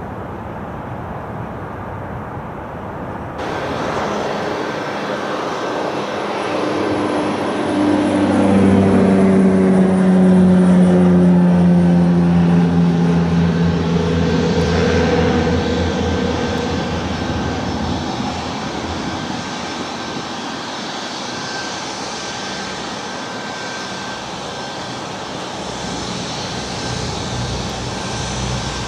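Boeing 737 MAX 8's CFM LEAP-1B turbofan engines running at taxi power, a steady jet rumble with a high whine. The sound swells to its loudest about ten seconds in, with several tones sliding down in pitch, then settles to a steadier level.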